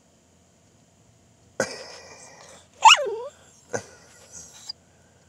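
Small black-and-tan dog vocalizing back at its owner: a sudden short huff about one and a half seconds in, then a brief whining yowl that falls in pitch, followed by a couple of faint clicks.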